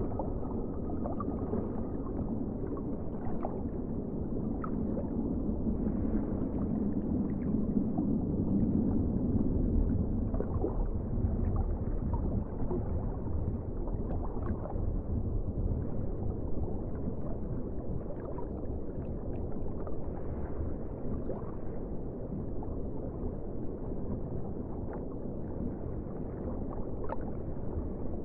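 Underwater ambience: a steady, muffled low rumble and wash of deep water, with faint small ticks scattered through it. It swells a little about a third of the way in.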